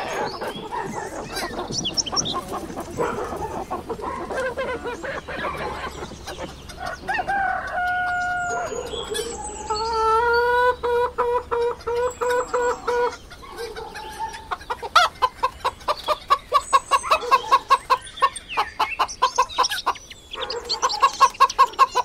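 Chickens clucking and calling: a flock chattering over one another at first, then a few long, steady-pitched calls about halfway, then quick rhythmic clucking, three or four clucks a second, through the last third.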